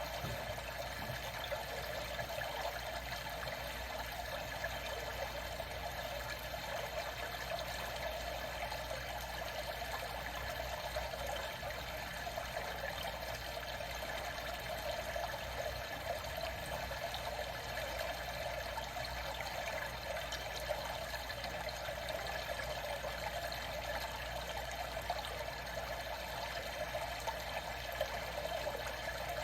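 Steady trickling, flowing water, even throughout with no breaks.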